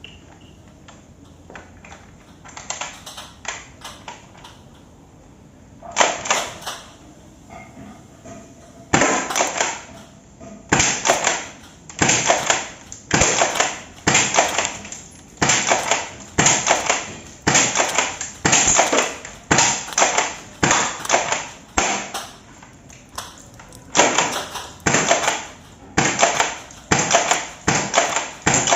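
6 mm airsoft shotgun being worked and shot: scattered light clicks, then from about nine seconds in a sharp clack about once a second, over and over.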